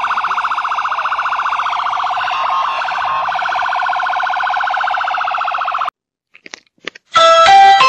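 Police car siren sounding with a fast, pulsing warble, cutting off suddenly about six seconds in. A few light taps follow, then an electronic doorbell chime rings out several notes near the end.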